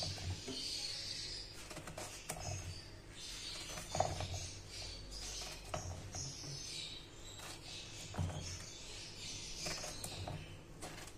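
Kitchen knife slicing through a raw peeled bottle gourd, with knocks of the blade against a ceramic plate every few seconds.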